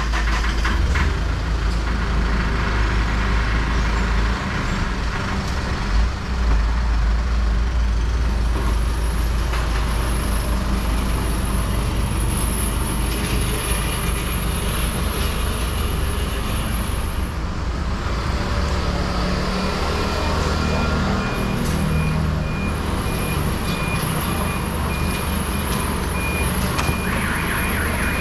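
Truck engines running close by with a low rumble throughout; from about two-thirds of the way in, a truck's reversing alarm beeps steadily, getting louder near the end.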